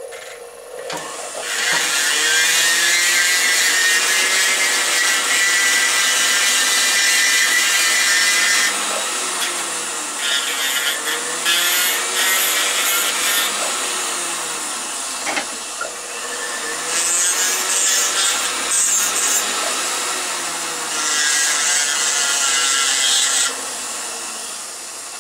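Jeweler's flex-shaft rotary tool grinding a small metal cross with a bur, shaping the spot where a replacement loop will be soldered. A long grinding pass comes first, then three shorter bursts, with the motor's whine rising and falling as its speed changes.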